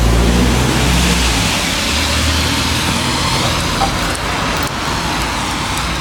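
Road traffic: a motor vehicle driving past with a low engine rumble, strongest in the first second and a half, over steady traffic noise.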